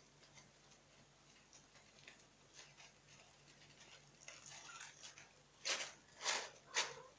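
Kittens scratching and digging in granular cat litter: a run of short, faint scrapes, with a few louder ones near the end.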